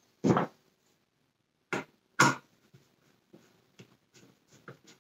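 Three short, loud knocks and clatters of handling in the first two and a half seconds, then a run of faint ticks and clicks as a screwdriver is fitted to the screw in the wheel cap of a Dyson Cinetic Big Ball vacuum cleaner.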